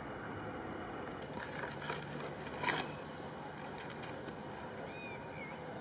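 Steady background hiss with a few light scrapes and clicks, the loudest about two and a half seconds in, and a short high chirp near the end.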